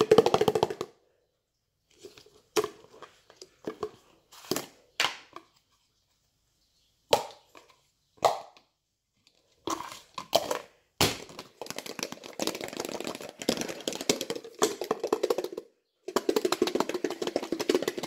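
A raw egg shaken hard inside a lidded plastic container, knocking and sloshing against the walls in fast rattling bursts: a short burst, a few single knocks, then long bouts of shaking in the second half with a brief pause. The egg, not hard-boiled, breaks up inside the container.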